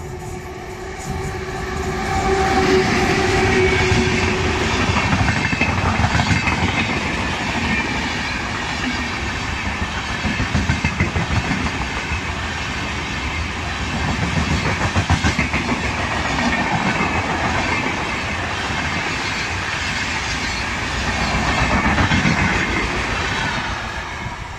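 Indian Railways electric locomotive sounding its horn for the first few seconds as it approaches, then its passenger coaches rushing past at speed with a rapid clickety-clack of wheels over the rail joints. The sound fades near the end as the last coach goes by.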